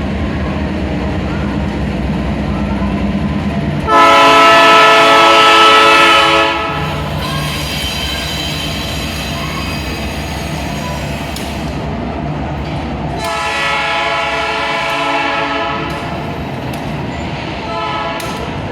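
Train locomotive rumbling by, its air horn sounding a loud blast of about two and a half seconds some four seconds in, then softer horn sounding afterwards and another clear blast about thirteen seconds in.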